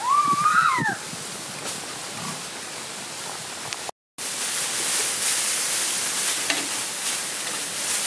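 Snails boiling in a coconut-shell pot, a steady bubbling hiss, with a short high call that rises then falls in the first second. After a cut, dry rice straw rustling as sheaves are tossed onto a straw pile, a brighter continuous hiss.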